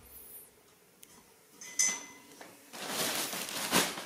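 A single sharp clink with a brief ring, then about a second later a stretch of rustling handling noise that peaks just before the end.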